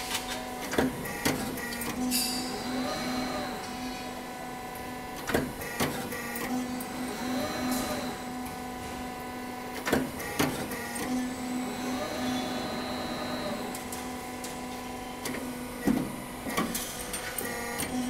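Garage door track roll forming machine's punching station running: a steady machine hum, with a punch stroke about every five to six seconds, each a pair of sharp knocks, and a whine that rises and falls between strokes.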